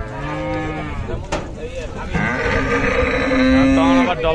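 Cow mooing: a call in the first second, then a longer, louder moo held on a steady pitch from about two seconds in until near the end.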